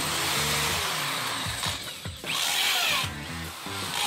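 Corded Craftsman drill boring into a hollow concrete block with a masonry bit. It breaks off about two seconds in and starts again louder, that second run with the drill switched to hammer mode.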